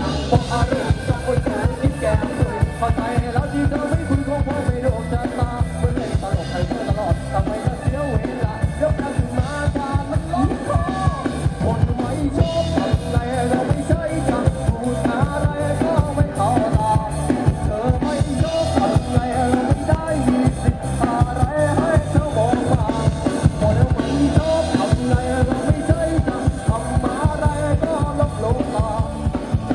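Live band music played loud through a sound truck's large speaker stacks: a drum kit keeps a steady driving beat under bass guitar and keyboard, with a singer's voice over the top.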